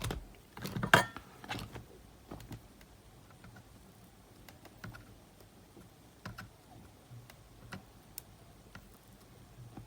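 Light clicks and taps of small tools and parts being handled while the tape-head ribbon cable is fitted into a portable cassette player, loudest about a second in and then sparse and faint.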